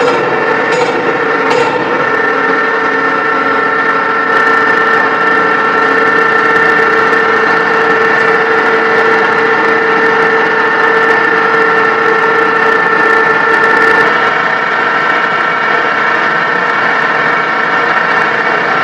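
Steady industrial drone of forge-shop machinery with several fixed humming tones, and a couple of faint metallic knocks near the start. About 14 seconds in the tones drop away, leaving a steady rushing noise.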